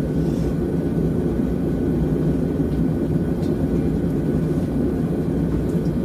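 A forge running with a steady, unbroken roar, with a few faint ticks over it.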